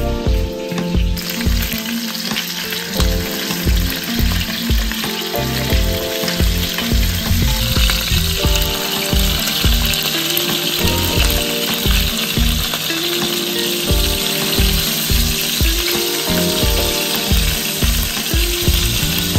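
Chicken drumsticks sizzling as they fry in oil in a nonstick pan, the sizzle growing louder about eight seconds in. Soft background music with a steady beat plays underneath.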